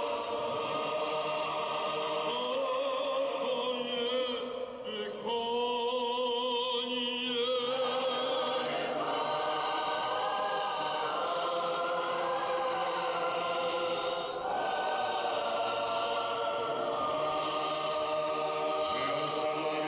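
Church choir singing Orthodox prayer chant in long held notes.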